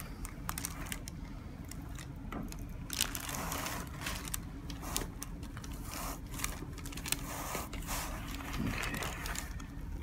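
Hands rubbing and shifting against skin and clothing as a patient's neck is positioned for a chiropractic adjustment: soft scraping and rustling with scattered faint clicks, over a low steady hum.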